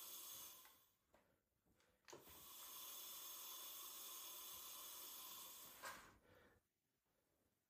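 Near silence: a faint steady hiss from about two and a half seconds in until nearly six seconds, with a light click at each end.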